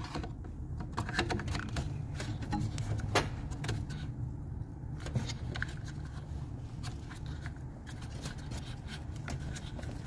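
Scattered small plastic clicks and rattles of wiring-harness connectors being handled and pressed at their sockets, over a steady low rumble.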